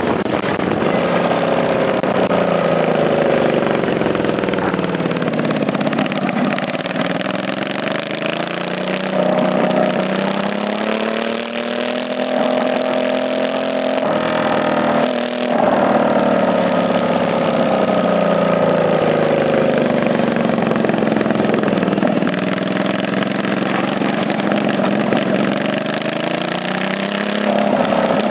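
650cc racing lawn mower engine running on a road run, its note repeatedly dropping and climbing as it slows and speeds up, with a brief break about halfway through.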